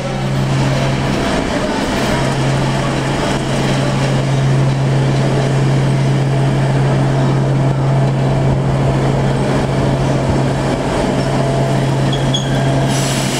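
ČD class 754 diesel locomotive's V12 diesel engine running steadily close by, a deep even hum over a dense mechanical rumble.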